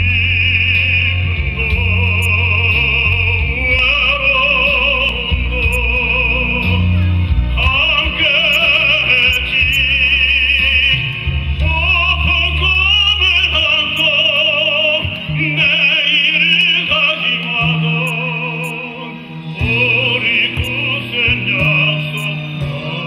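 A singer in a classical, operatic style sings long phrases with strong vibrato over instrumental accompaniment with a steady bass line. There is a short dip between phrases a little before the end.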